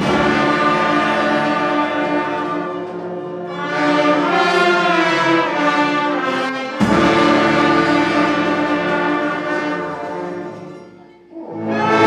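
Instrumental ensemble playing a piece in long held chords; a new chord comes in sharply a little past halfway, then the sound fades almost away shortly before the end and the ensemble comes back in.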